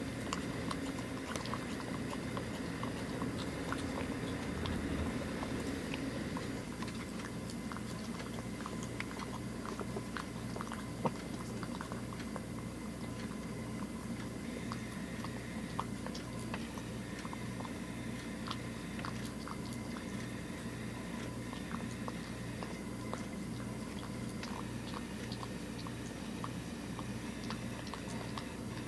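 A tabby-and-white domestic cat eating soft wet food from a clear bowl, with many small wet clicks and smacks of chewing and lapping, over a steady low background hum. The cat has just had teeth extracted.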